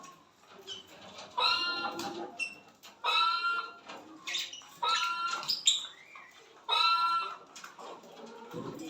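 Small pet parrots calling: four loud, harsh, pitched calls about half a second each and roughly two seconds apart, with fainter chatter between them.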